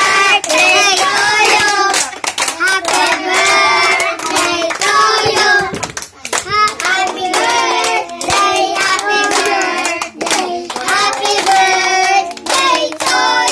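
A small group singing a birthday song together, some voices high like a child's, clapping their hands along in time, in a small room.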